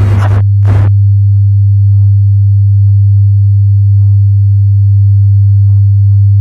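Loud, steady low electronic hum, one unchanging tone. Two short hissing bursts sound in the first second, then only faint, scattered short blips over the hum.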